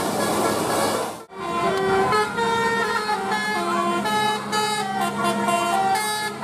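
Indonesian bus 'telolet' horn, a set of multi-tone air horns, playing a quick tune of short notes that step up and down in pitch. The tune follows a brief break about a second in.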